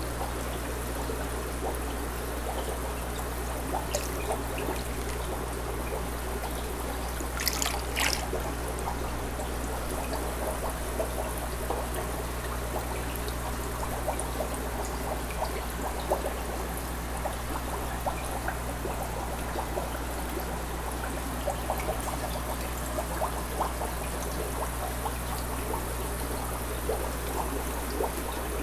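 Steady trickle of water in a goldfish tub, over a low steady hum, with scattered faint clicks and two sharper clicks about seven and a half seconds in.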